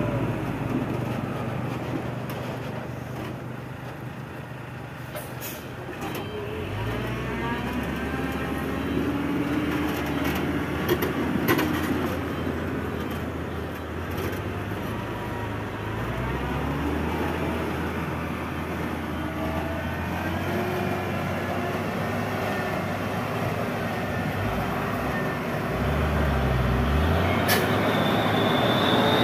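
Diesel engine of a Mitsubishi tandem-axle dump truck driving across a dirt site. The engine revs up several times as it pulls away and turns, with a few brief sharp clicks.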